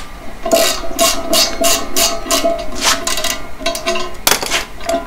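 Ratchet wrench being worked in quick short strokes, about four a second, undoing the front hub bolts of a Unimog U3000.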